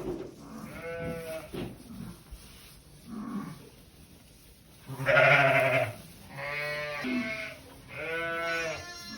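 Sheep bleating: about five separate calls of roughly a second each, the loudest about five seconds in.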